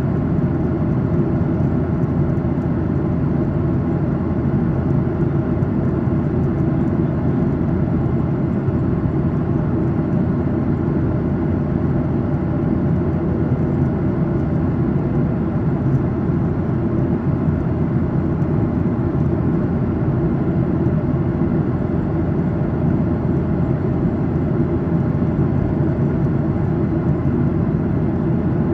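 Steady drone inside the cabin of a Boeing 737-800 in flight: the hum of its CFM56-7B turbofan engines mixed with the rush of air over the fuselage, low-pitched and unchanging.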